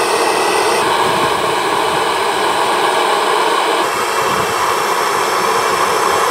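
MAP-gas hand torch burning with a steady rushing hiss, its flame heating a rusted exhaust pipe fitting on a small engine. The tone shifts slightly about a second in and again near four seconds in.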